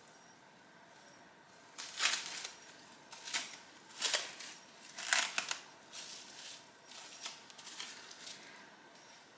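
Plastic cling film crinkling as it is stretched and pressed around the rim of a bowl, in a series of short rustling bursts.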